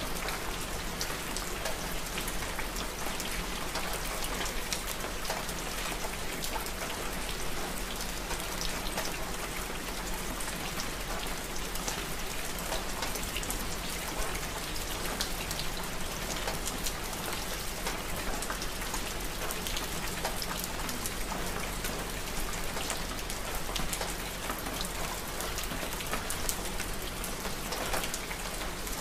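Steady rain, an even hiss dotted with many separate drop ticks, holding at the same strength throughout.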